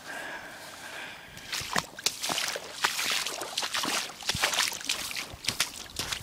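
Shallow water sloshing and splashing, with a thick run of sharp splashy noises from about a second and a half in. A faint steady whine is heard at the start.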